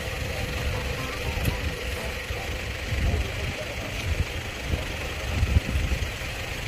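A vehicle engine idling steadily, with a constant hum under irregular low rumbling.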